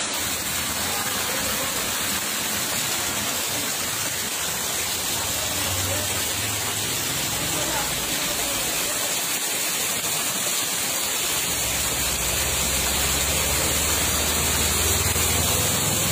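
Water rushing steadily along a concrete drain, with a low rumble joining in about two thirds of the way through.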